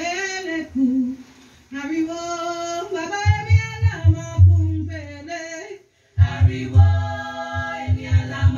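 Background music: a song with a singing voice, joined about three seconds in by a pulsing bass beat. It cuts out briefly near the middle and then starts again.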